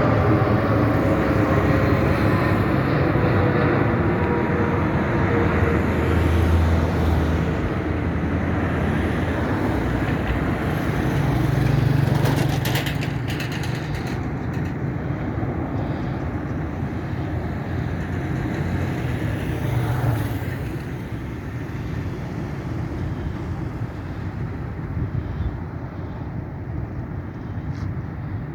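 Jet engines of a Boeing 777 freighter running with a steady low rumble that slowly fades, a falling engine whine near the start.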